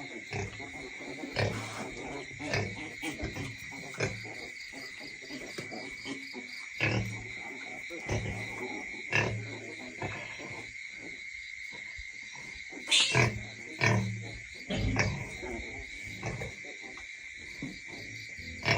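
Pigs grunting, short low grunts every second or two, with a louder, sharper call about thirteen seconds in. A steady high-pitched hum runs underneath.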